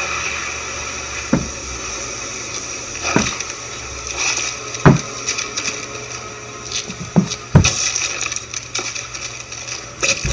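Heavy lace-up boots thudding on a wooden floor in slow, uneven steps, a sharp knock every second or two. The loudest fall about five seconds in and near eight seconds. A heavier thud near the end fits a knee dropping onto the boards.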